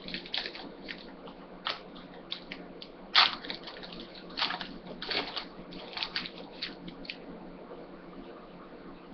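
Crinkling and rustling as a trading-card pack's plastic wrapper is torn open and the cards inside handled: a run of short crackles, sharpest about three seconds in, dying away after about seven seconds.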